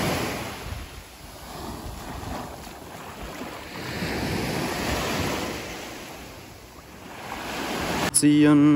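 Sea waves washing up on a beach, the surf rising and falling in slow swells, with wind buffeting the microphone.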